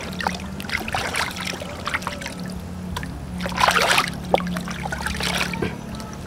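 Water sloshing and splashing in a plastic basin as a whole plucked turkey is rubbed and turned in it by hand, in uneven bursts, the loudest about three and a half seconds in.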